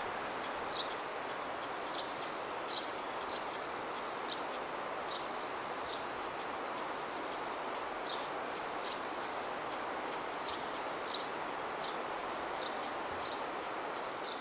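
Insects chirping in short, high notes, two or three a second at an uneven pace, over a steady rushing background noise.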